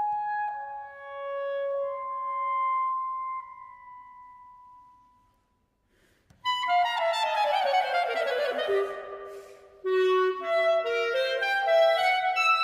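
Clarinet and piano performing classical music. The clarinet holds long, smooth notes that fade to near silence about five seconds in. About a second later the music resumes with a fast descending run and then quick running notes.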